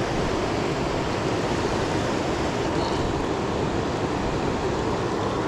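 The Poudre River's fast current rushing steadily over rocks.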